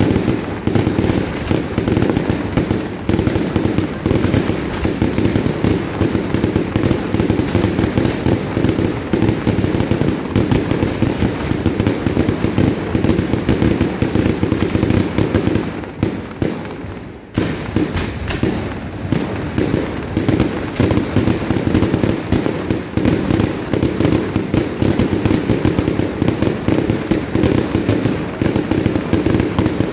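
Fireworks display: a dense, rapid volley of bangs and crackling from aerial bursts, easing briefly a little past halfway before a sharp bang starts it up again.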